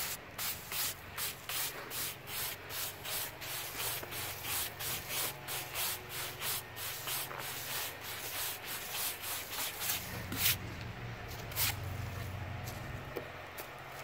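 Sawdust being swept off the sawn face of a freshly milled walnut slab: brisk scraping strokes, about two to three a second, ending about ten seconds in with one louder stroke and then a few scattered ones.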